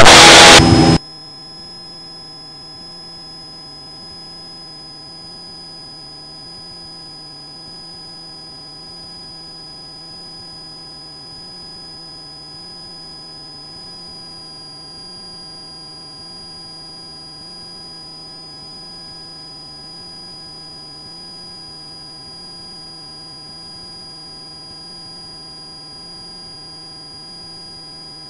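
A loud burst of noise cuts off about a second in. After it comes a steady electronic whine made of several fixed tones, with a low hum under it that wavers slowly. It is the kind of steady whine that stays on a helicopter intercom audio feed when nobody is talking.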